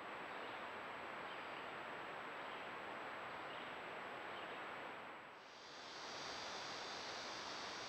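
Steady hiss from a trail camera's microphone, with a thin high whine. There are no distinct animal calls or footsteps. After a clip change about five seconds in, a fainter, higher hiss joins the background.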